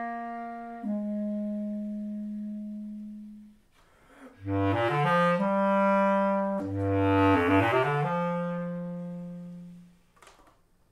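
Bass clarinet playing slow melodic lines. A held note steps down and fades, then after a short pause come two phrases that each start on a low note and climb to a long held higher note, the last one fading out near the end.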